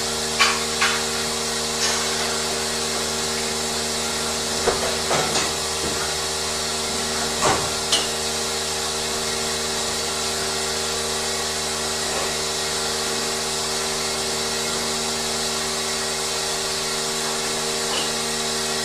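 Steady machinery hum and hiss with several steady tones, broken by scattered short metallic knocks and clanks, most of them in the first half.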